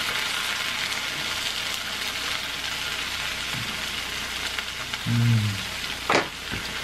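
Melted mozzarella cheese sizzling steadily on a hot electric griddle, with a brief low hum about five seconds in and a sharp click just after.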